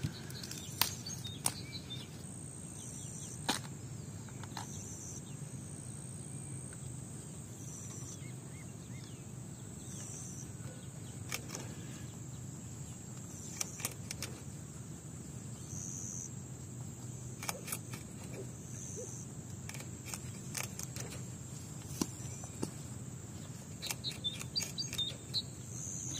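Outdoor rural ambience: a short, high chirp repeats every two to three seconds over a faint steady hum, with a faint steady high-pitched trill and scattered light clicks and rustles.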